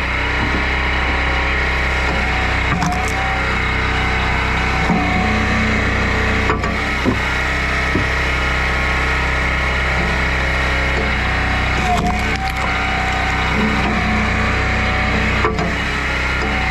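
Engine running steadily while a log splitter works through firewood. Wood cracks and splits sharply several times.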